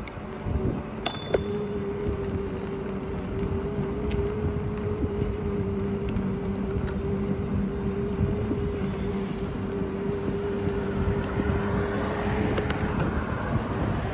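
Riding noise from a bicycle on a paved path: wind rumbling on the microphone and tyres on the pavement, with road traffic passing alongside. A steady whine sets in about a second in, just after a click, and holds until near the end.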